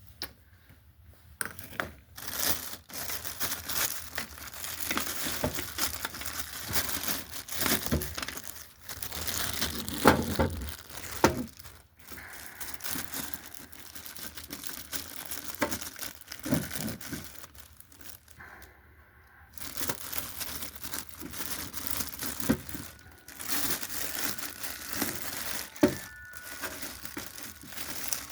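Packaging crinkling and tearing as it is handled and pulled open, in irregular bursts with a short lull about two-thirds of the way through.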